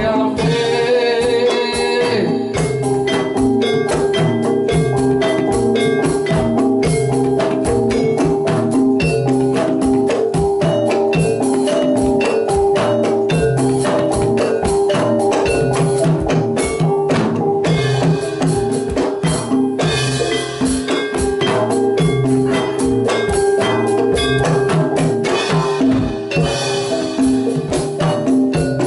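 Javanese gamelan playing continuously: a kendang barrel drum struck by hand in a busy rhythm over bronze metallophones and gongs.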